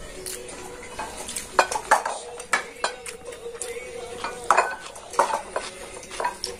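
A metal spoon clinking and scraping against ceramic bowls and plates as rice is served, in a string of irregular sharp clinks.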